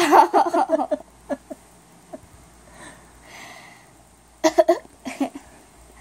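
A girl giggling in short breathy bursts: a quick run of giggles lasting about a second at the start, and another run about four and a half seconds in.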